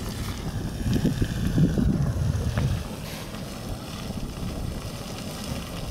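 Beehive Geyser erupting: a steady rushing roar of the water column and spray, with wind buffeting the microphone in gusts, strongest over the first three seconds.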